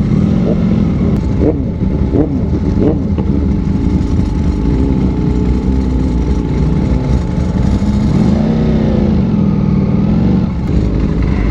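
Several sport motorcycles running at low speed in a group, engine pitch rising and falling with the throttle, with a few short revs in the first three seconds.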